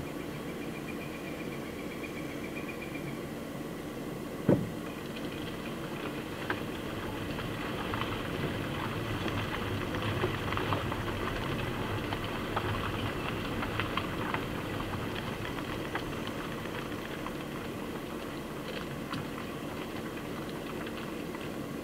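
Vehicle engine idling steadily, with a single sharp click about four and a half seconds in and scattered faint ticks in the middle.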